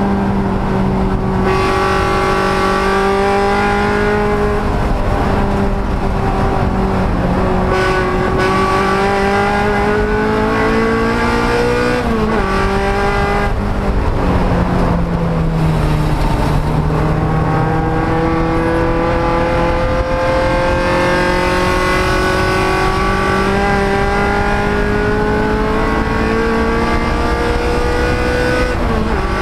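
Race car engine pulling hard on track, its pitch climbing slowly under load and dropping sharply at gear changes, once about halfway through and again near the end.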